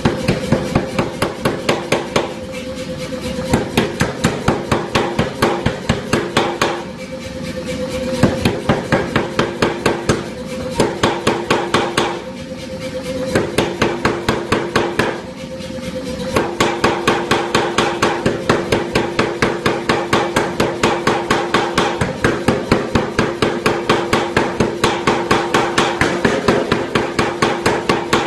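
Anyang air power hammer striking a red-hot steel bar in fast, regular blows, about four a second. The first half comes in short runs with brief pauses between them, and the second half is one unbroken run. A steady machine hum runs underneath.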